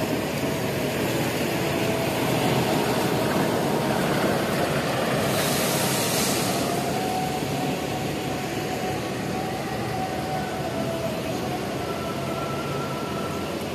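Diesel engine of a large intercity coach bus running as it pulls out and drives off, with a brief hiss of air about five seconds in.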